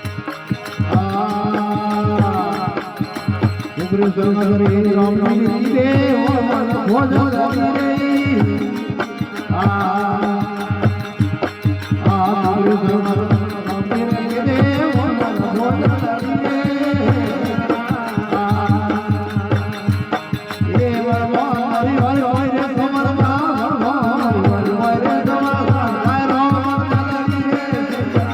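Rajasthani desi bhajan music: a steady hand-drum rhythm under a bending melodic line that carries on throughout.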